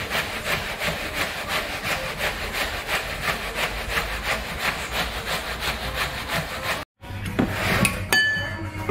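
Metal sheer yakh drum turned back and forth by hand in its bed of crushed ice, making a steady rhythmic rasping as it grinds against the ice. It cuts off suddenly about seven seconds in, and a few clinks follow.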